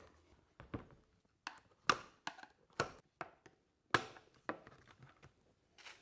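Clamps being levered off a plastic electrode steam humidifier cylinder with a screwdriver, each popping free with a sharp click or snap: about seven irregular clicks, the loudest in the middle.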